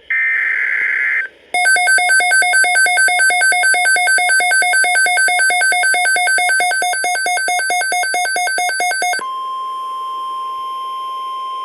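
Emergency alert tones from a NOAA Weather Radio broadcast. A short harsh digital data burst comes first, then rapid electronic beeping on two pitches for about seven and a half seconds. About nine seconds in, the beeping gives way to a single steady weather-radio alert tone of about 1050 Hz.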